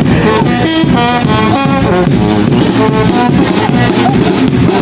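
Loud music led by brass horns playing a melody.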